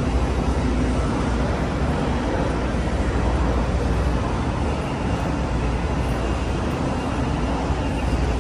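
Steady, unbroken background rumble of vehicle engines and traffic, with no single event standing out.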